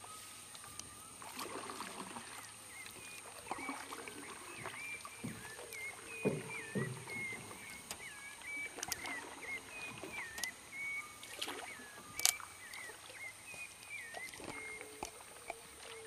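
Wildlife calling from the forested riverbank at dusk: a rapid run of short, repeated chirping notes at one high pitch, with lower calls mixed in and a steady high whine throughout. Scattered knocks, the loudest a sharp one about twelve seconds in.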